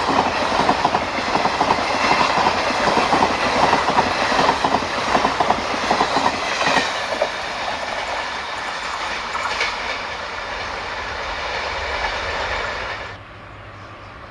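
Train wheels clattering rapidly over rail joints. After about seven seconds the clatter eases into a smoother rumble, then drops away suddenly near the end.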